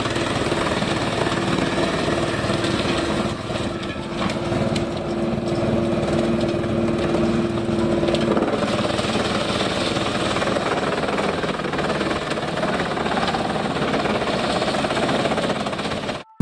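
A wood-powder (sawdust-making) machine running steadily, a dense mechanical noise with a steady hum that fades about halfway through.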